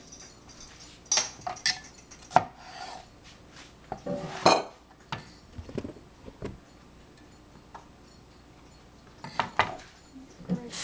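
Metal kitchen utensils knocking and clinking against a plastic cutting board and a tiled counter in scattered sharp knocks, with a short scrape about four seconds in and a quiet spell near the end.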